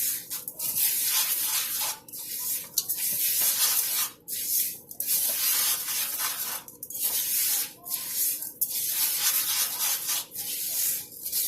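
Uncooked rice being stirred in hot oil in a pot: a sizzling, scraping hiss that swells and drops in strokes about every two seconds.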